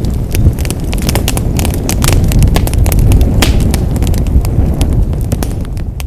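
Fire in a fireplace crackling, with many quick sharp pops over a steady low rumble of the flames.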